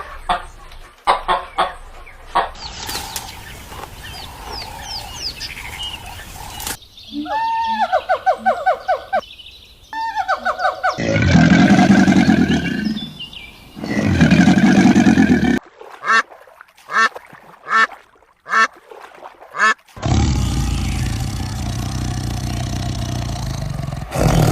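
Several different animal calls one after another, changing abruptly every few seconds, among them runs of repeated honking bird calls.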